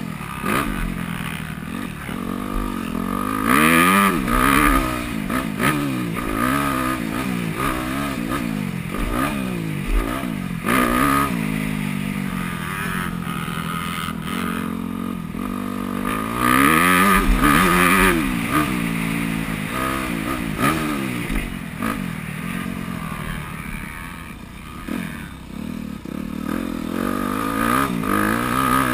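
2009 Yamaha YZ250F four-stroke single-cylinder motocross bike ridden hard, its engine revving up and falling back over and over through the corners and straights, with several loud full-throttle pulls. Heard from the rider's helmet.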